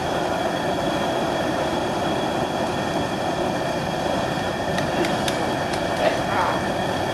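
Propane turkey fryer running steadily: the gas burner's rushing flame under a pot of hot frying oil, an even noise with no let-up.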